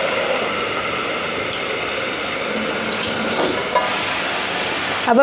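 Katla fish curry simmering in a kadhai on a gas stove, giving a steady sizzling hiss.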